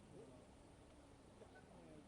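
Near silence, with faint distant voices murmuring.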